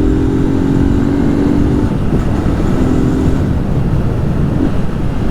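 Single-cylinder engine of a Honda CG Start motorcycle running with its air filter removed while riding, with wind rushing over the microphone. A steady engine note holds for about two seconds, drops away, then returns briefly about three seconds in.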